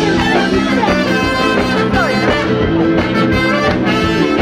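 Music with several instruments playing together at a steady, loud level.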